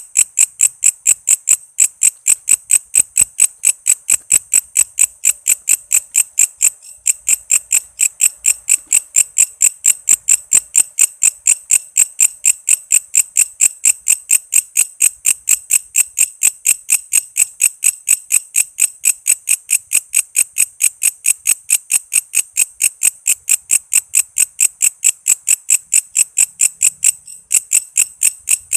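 Walang kece katydid singing: a steady run of rapid, evenly spaced shrill chirps, with a brief break about seven seconds in and again near the end.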